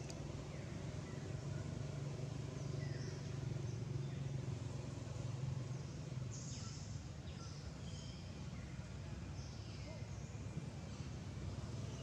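Outdoor ambience: a steady low hum under scattered faint bird chirps and short falling calls.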